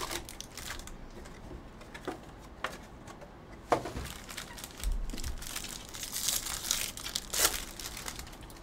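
Foil wrappers of 2020 Bowman Jumbo baseball card packs being torn open and crinkled by hand, in scattered rustles and clicks. The crinkling is densest from about five to seven and a half seconds in.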